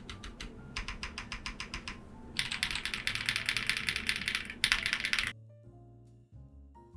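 Typing on a CIY GAS 67 mechanical keyboard fitted with lubed Holy Panda tactile switches: an even run of quick keystrokes, then a faster, denser flurry that stops suddenly about five seconds in. Soft background music plays throughout and is left alone after the typing stops.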